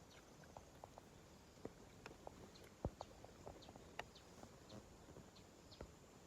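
Near silence: faint outdoor ambience with scattered soft clicks and a few faint, short, high chirps.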